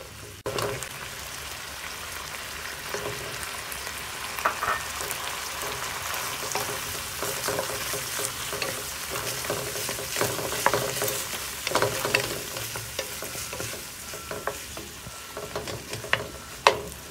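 Ground pork sizzling in a frying pan as a wooden spatula stirs and scrapes it. A steady frying hiss runs throughout, with frequent short scrapes and clicks of the spatula against the pan.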